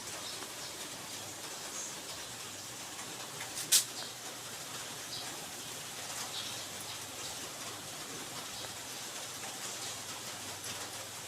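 Steady hiss with a faint low hum from the air conditioner's fan running, one sharp click a little under four seconds in, and faint short high chirps here and there.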